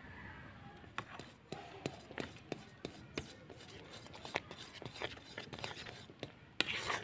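Metal spatula stirring thick, hot roselle jam in a steel wok, with irregular clicks and taps of the spatula against the pan and a louder noisy burst near the end.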